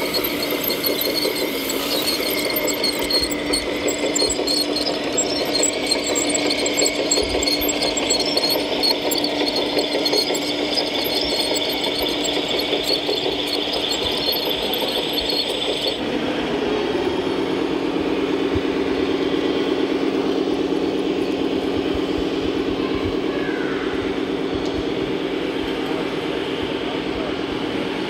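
Scale RC hydraulic excavator (Liebherr 960 SME model) running, a steady mechanical whine over engine sound. About sixteen seconds in the sound changes abruptly to a lower, steady, fast-pulsing diesel engine drone from the RC Mercedes-Benz Actros heavy-haulage truck's sound module.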